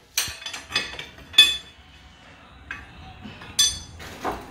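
Hand tools and bolts clinking against metal while the passenger-side engine mount is being fastened: a series of separate sharp clinks, a few of them with a short metallic ring.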